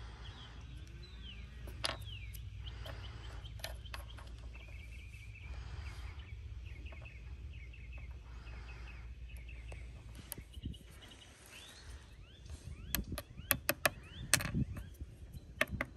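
Quiet outdoor ambience with small birds chirping over a low steady rumble; in the last few seconds, a run of sharp clicks as the hard, hollow rooster spurs are knocked against each other and the weathered wooden board.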